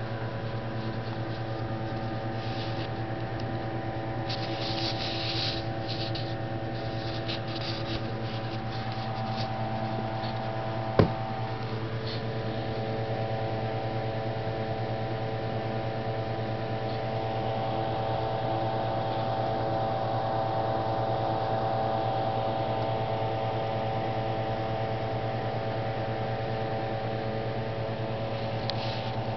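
Steady machine hum with several held tones. A few brief scratchy noises come in the first seconds, and a single sharp click about eleven seconds in.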